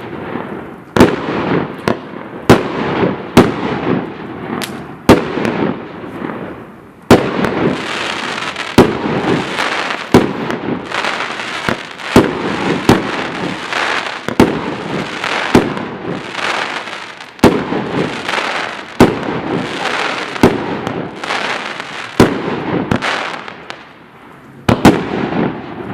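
Multi-shot fireworks cake firing in sequence: sharp reports about one a second over continuous crackling. There is a brief lull near the end before the shots start again.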